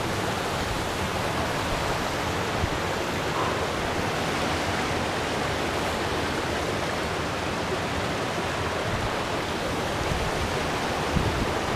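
Steady rush of water spilling and cascading down between large rocks, heard as an even, unbroken noise.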